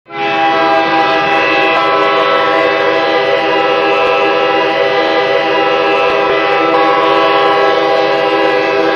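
Boston Bruins ice hockey goal horn, a recording, starting abruptly and holding one long, steady multi-note chord, sounded to mark a goal.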